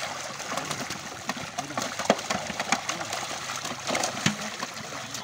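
Live fish thrashing in a crowded net in shallow pond water: continuous splashing, broken by many sharp slaps.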